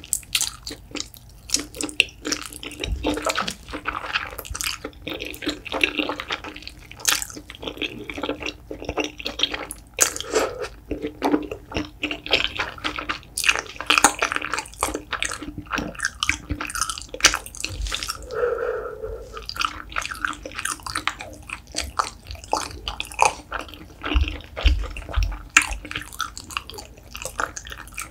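Close-miked wet chewing of spicy braised beef feet: sticky, chewy gelatinous meat worked in the mouth with a steady run of small wet clicks and lip smacks.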